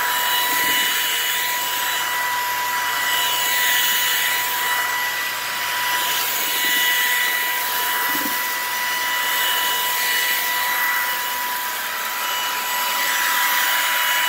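Ryobi ONE+ cordless stick vacuum running on carpet, sucking up spilled cat litter and dust: a steady motor whine over a rush of air that swells and eases with each push and pull of the head.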